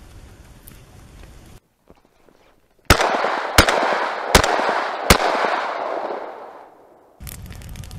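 Four rapid shots from an MP-155 semi-automatic shotgun, about three quarters of a second apart, starting about three seconds in, their echo fading away over a couple of seconds after the last shot.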